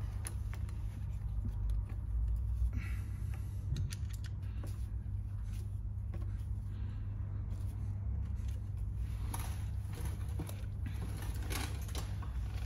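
Faint clicks and scrapes of a scooter carburettor being pushed onto its intake stub and its hose clamp tightened with a screwdriver, over a steady low hum.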